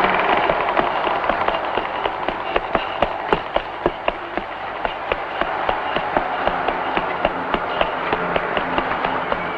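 Quick running footsteps of a child's shoes on pavement: sharp, irregular taps several times a second over a steady hiss.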